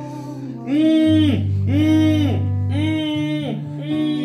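Acoustic guitar played along to a backing track: sustained low notes change about a second in and again near three seconds, under a melodic note that rises and falls four times in a row.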